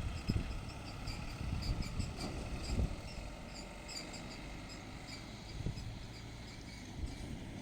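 Outdoor background noise: a low, uneven rumble with many faint, short high-pitched chirps scattered through it.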